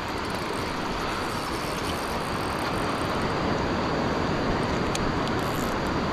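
Steady rushing of ocean surf breaking against a rock ledge, mixed with wind on the microphone.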